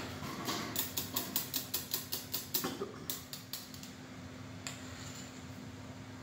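A metal spoon clicking quickly against the wires of a stand mixer's whisk attachment and its steel bowl while scraping off mashed potatoes, about five clicks a second for some three seconds, then one more click later. A low steady hum sits underneath.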